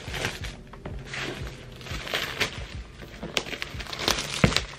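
Plastic wrapping crinkling as it is pulled off a cardboard laptop box, with sharp taps and knocks as the box is handled. The rustle comes in repeated bursts, with the sharpest clicks near the end.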